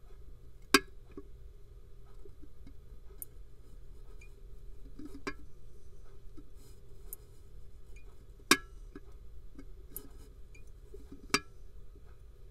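Tipping bucket rain gauge's bucket assembly snapping over on its pivot: five sharp clicks a few seconds apart, three of them loud, each tip closing the reed switch that steps the counter. A low steady hum runs underneath.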